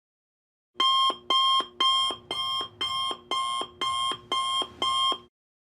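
Alarm clock beeping: a run of nine even beeps, about two a second, starting about a second in. The first three beeps are loudest, and the run cuts off suddenly.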